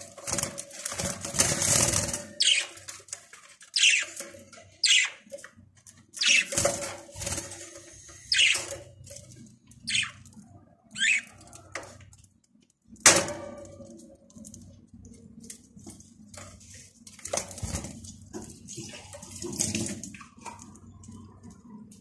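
Pet budgerigars giving short, sharp squawking chirps every second or so. Plastic feeder and food dishes rattle against the wire cage, with one loud knock a little past halfway.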